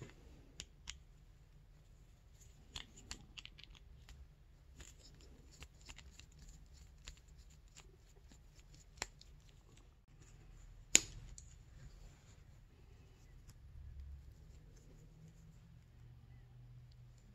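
Faint small clicks and scrapes of a screwdriver backing a screw out of a snowmobile throttle/stop switch's plastic housing, then fingers prying the housing apart, with one sharper click about eleven seconds in.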